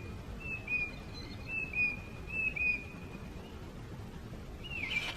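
A songbird whistling a clear two-note phrase, a short higher note sliding into a slightly lower held note, repeated about three times a second apart. A single curving whistle comes near the end, over a low rumbling background.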